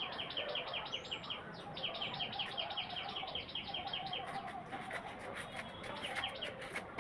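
A bird trilling in the background: rapid, evenly repeated high chirps, about eight a second, in two runs with a short break between. A few sharp clicks follow in the second half.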